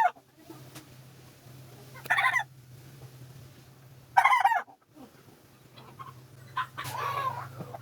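Chicken calling in short, loud squawks about every two seconds, with a longer, fainter call near the end, over a steady low hum.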